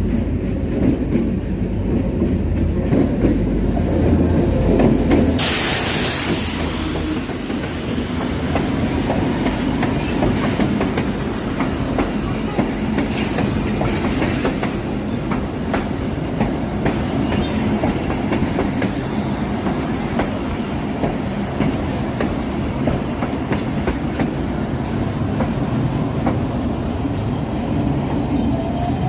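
GMD G22W-AC diesel-electric locomotive running along the track, with a steady rumble and wheels clicking over rail joints. A brief burst of hiss comes about five seconds in, and a thin, high wheel squeal near the end.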